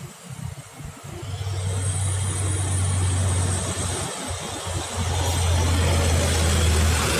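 Diesel engine of a Hino tanker truck running as the truck approaches and passes close by. It makes a steady low drone that builds up from about a second in and is loudest as the truck goes past near the end.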